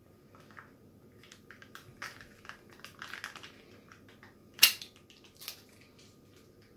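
Chicken stock cubes being crumbled between the fingers into a pot: faint, scattered crumbly crackles, with a sharp click about two-thirds of the way in and a smaller one just after.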